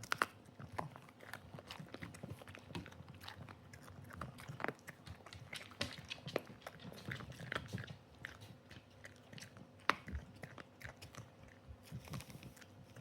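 A Cavalier King Charles Spaniel chewing on a dog chew, with many irregular crunching and gnawing clicks.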